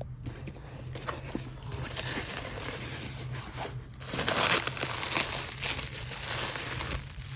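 Packaging crinkling and rustling as it is handled, getting louder about four seconds in, over a steady low hum.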